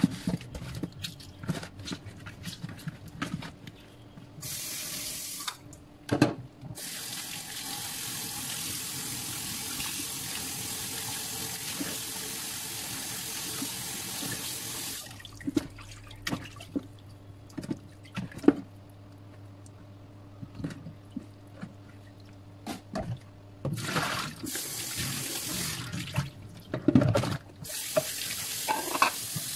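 Kitchen tap running into a stainless steel sink, turned on and off several times, while raw chicken pieces are rinsed and rubbed by hand in a plastic basin. The water runs longest from about a quarter of the way in to about halfway, and comes back near the end. Short splashes and knocks come from the pieces being handled.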